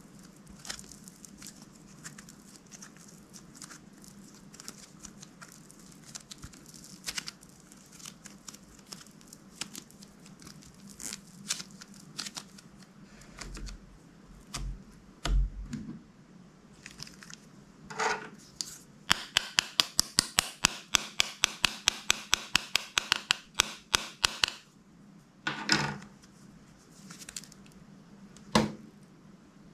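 Hands working slime: scattered small clicks and crackles, a few dull bumps, then a quick even run of sharp clicks, about five a second for some five seconds, and two louder single clicks near the end.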